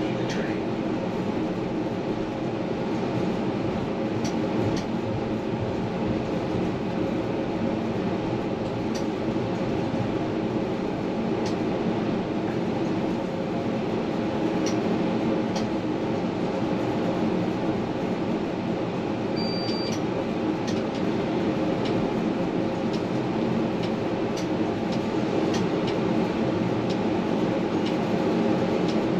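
Tram running on its rails, heard from on board: a steady rumble and hum from the motors and wheels, with scattered light clicks. There is one short high beep about two-thirds of the way through.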